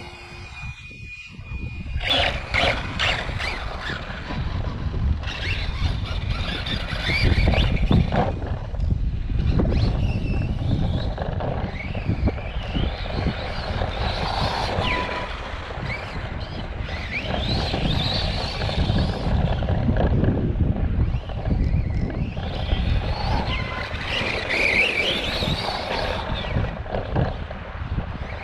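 Arrma Kraton 4S electric RC truck running laps, its motor whining up and down in pitch as it speeds up and slows, over tyre and drivetrain noise. The uploader suspects a bad bearing or gear somewhere in the drivetrain.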